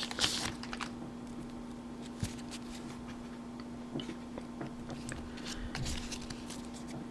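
Crinkling and rustling of a foil Pokémon booster pack being torn open and the cards handled: a burst of crackles at the start, then scattered small ticks and rustles. A faint steady hum lies underneath.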